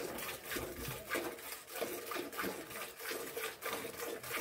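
A cow being milked by hand: jets of milk squirting from the teats in a steady rhythm, a few strokes each second.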